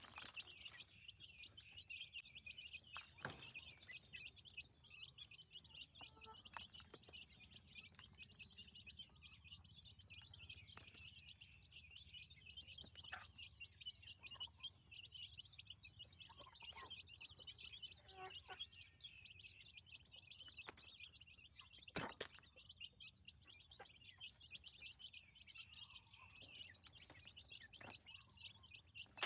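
Faint, continuous high-pitched chirping of many birds, with a few sharp clicks, the loudest about 22 seconds in.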